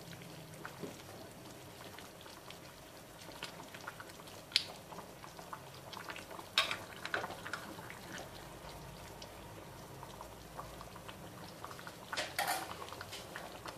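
Fish stew simmering in a glass saucepan while a metal spoon stirs it, with a few sharp clinks of the spoon against the pot.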